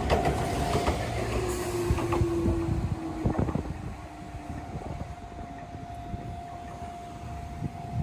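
Enoden (Enoshima Electric Railway) train passing close by, its wheels clicking over the rail joints, with a steady whine. About halfway through the sound drops to a quieter, more distant train carrying a single steady tone.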